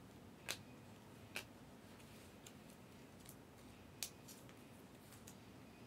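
Faint clicks and taps of trading cards being handled and slid against a clear plastic card sleeve, a few sharp ticks spread across otherwise near-silence.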